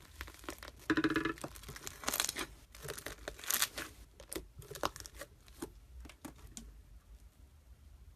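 Slime being squeezed and pulled apart by hand: a run of crackling pops and tearing sounds that thins out after about six seconds, with a brief squeaky note about a second in.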